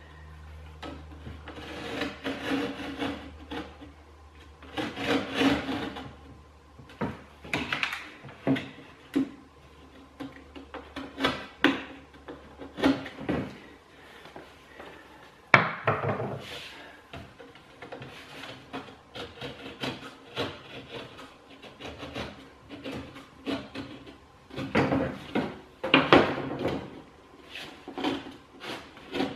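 Stanley knife scoring through the paper facing of a plasterboard sheet: a run of short rasping cutting strokes, with one sharp knock about halfway through.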